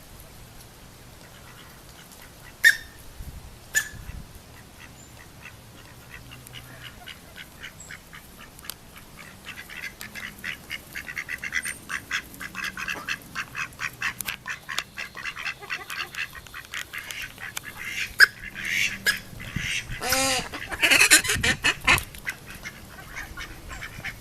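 Mallard hen coughing: two short sharp coughs a few seconds in, then a long run of rapid soft ticking and a louder call near the end. It is the sound the owner's Pekins made when they had aspergillosis, though she hopes it is only something stuck in the throat.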